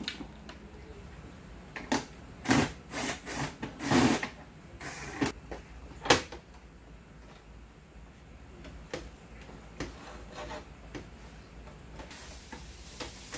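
Scattered clicks and knocks of an HP 8100 inkjet printer's plastic casing and parts as they are handled and pried at with a small tool. The clicks cluster in the first six seconds, ending in one sharp click about six seconds in, then a few fainter ones follow.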